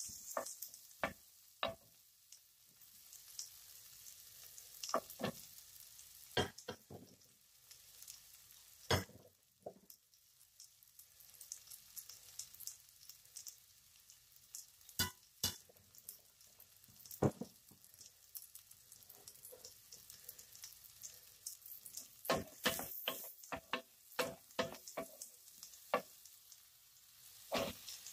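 Chopped garlic sizzling in fat in a nonstick pot, with a faint steady hiss, while a wooden spoon stirs it, knocking and scraping against the pot. The knocks are scattered at first and come in quick clusters in the last few seconds.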